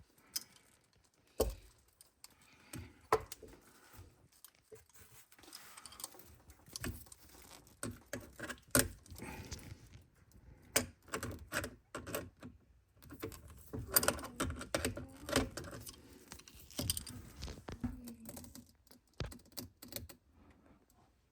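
Irregular clicks, knocks and clatters of hands handling plumbing fittings and tools under a kitchen sink while a garbage disposal's drain trap and dishwasher hose are disconnected. The sounds are quiet and scattered, busiest in the second half.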